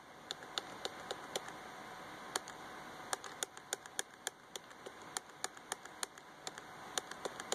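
A run of sharp, irregular computer clicks, sometimes several a second, as the forecast map frames on a laptop are stepped forward, over a faint steady hiss.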